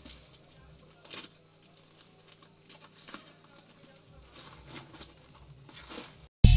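Faint rustling and handling noises from a courier parcel being unboxed, in short scattered bursts over a low steady hum. Loud background music cuts in suddenly near the end.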